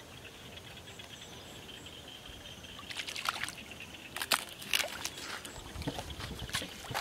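Feet wading and splashing through shallow, muddy rice-paddy water, with irregular sloshes starting about three seconds in. Before that there is only a faint steady high tone.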